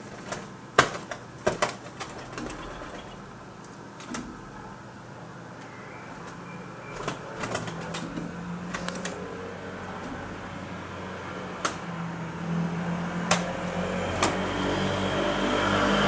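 Sharp wing slaps from wood pigeons fighting, a quick cluster in the first few seconds and a few scattered ones later. A vehicle engine hum builds up in the background over the last few seconds.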